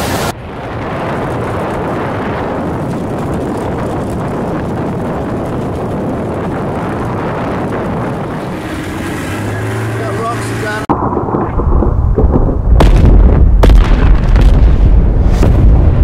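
Volcanic eruption: a steady rushing rumble. After a cut about eleven seconds in, a much louder, deep rumble comes in with several sharp cracks.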